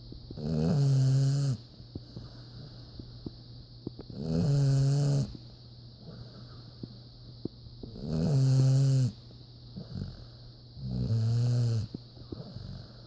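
Slow, regular snoring: four loud snores in a row, each a low buzzing tone about a second long, coming about every three and a half seconds, with quiet breathing gaps between them.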